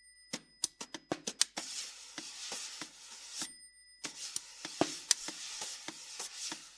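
Prepared snare drum, its head covered with paper and a plastic cup, played with sticks: a quick run of dry taps, then a rasping, scraping texture with scattered taps, stopping briefly a little past three seconds in before the scraping starts again.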